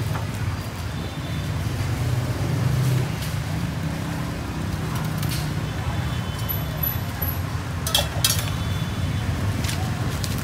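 Busy street-market background: a steady low rumble of traffic, with a few sharp clicks and knocks, the loudest about eight seconds in.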